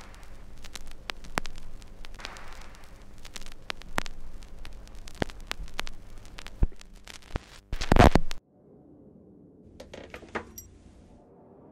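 Dense crackle and pops over a steady low hum, like a scratchy old film soundtrack, rising to a loud burst about eight seconds in and then cutting off abruptly. A much quieter low rumble with a few faint clicks follows.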